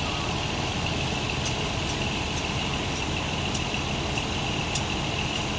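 Large intercity coach's diesel engine idling, a steady low rumble, with a steady high-pitched tone above it and faint regular ticks under a second apart.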